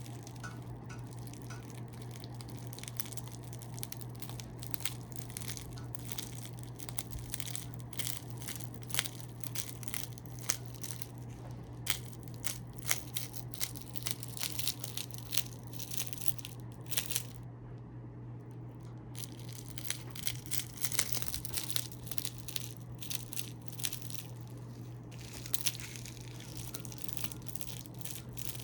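Freshly made oats, milk and honey soap loaf being peeled out of its mould: irregular crackling, tearing and crinkling, over a steady low hum.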